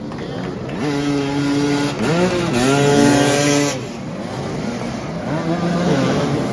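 Motoball motorcycle engines revving hard in bursts. The pitch climbs about a second in, dips briefly, climbs again to its loudest and drops off after about four seconds, then rises again near the end.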